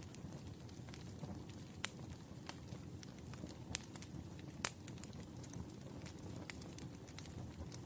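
Wood fire crackling: irregular sharp pops and snaps over a low, steady rumble of burning logs, with a few louder pops scattered through.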